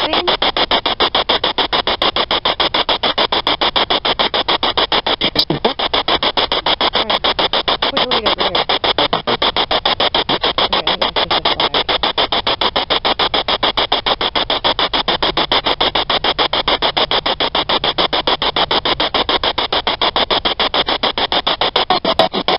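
Spirit box sweeping through radio stations: loud, rapid, evenly chopped static with brief faint snatches of broadcast sound.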